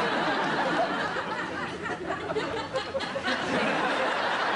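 Studio audience laughing, a dense, sustained wash of many voices.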